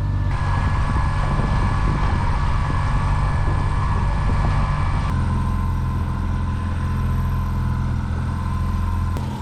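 Boat engine running steadily at slow trolling speed, a low droning hum with wind and water noise over it. The hum changes abruptly about five seconds in.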